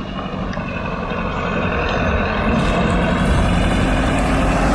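A Tata bus's diesel engine running as the bus drives up a gravel road toward the listener, growing steadily louder as it comes close.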